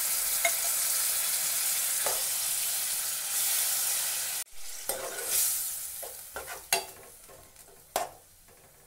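Fried masala sizzling loudly in a steel kadai as added water hits the hot oil. It stops abruptly about four and a half seconds in. After that a steel spoon stirs the watery gravy, scraping and clinking against the pan a few times.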